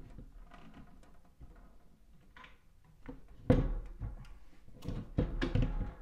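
Panel radiator being hooked back onto its wall brackets: a few sharp knocks as it seats, the loudest about three and a half seconds in and another just after five seconds.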